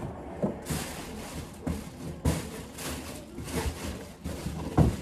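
Rustling and handling of a cardboard shipping box and the plastic wrapping of clothes being unpacked: a series of short rustles and soft knocks, with a louder thump near the end.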